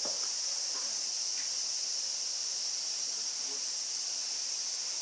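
Steady high-pitched drone of insects, unbroken throughout, with no other clear sound.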